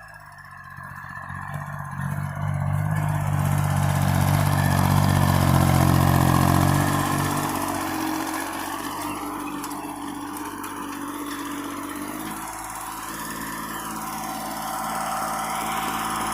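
Small tractor's engine running, growing louder over the first few seconds and then easing back about seven or eight seconds in to run steadily.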